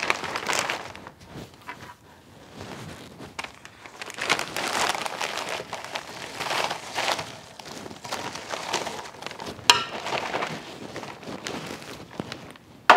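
Zip-top plastic bag crinkling and rustling as dry, freeze-dried egg slabs slide off a metal tray into it, with a sharp tap a little under ten seconds in.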